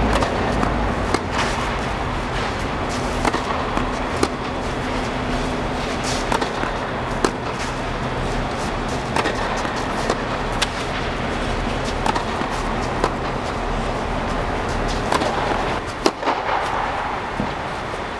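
Tennis balls struck with rackets and bouncing on an indoor court: sharp pops every one to three seconds, over the steady low hum of the air-supported dome's blowers.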